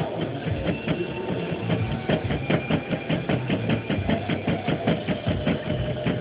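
Chef's knife rapidly chopping red chiles on a plastic cutting board: a quick, even run of blade strikes on the board, about six a second.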